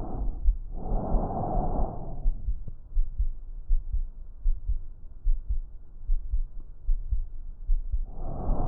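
Breath sounds heard through a stethoscope on the chest, a soft rushing noise. One breath phase fades just after the start and another runs from about one to two seconds in. After a long pause the next breath starts near the end, and the low thuds of the heartbeat carry on throughout.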